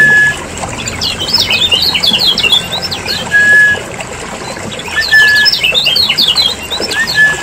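Kecial kuning, a yellow white-eye, calling loudly: a short flat whistled note that recurs every couple of seconds, alternating with two bursts of rapid high chattering. A bird-lure recording meant to draw in and set off wild white-eyes.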